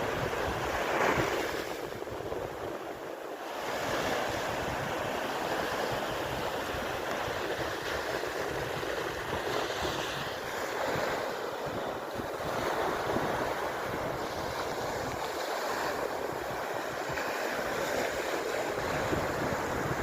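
Sea waves breaking and washing on the shore, swelling and easing every few seconds, with wind buffeting the microphone.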